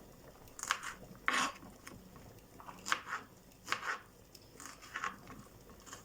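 Kitchen knife dicing a soft tomato on a cutting board: about six short cuts at an uneven pace, the loudest about one and a half seconds in.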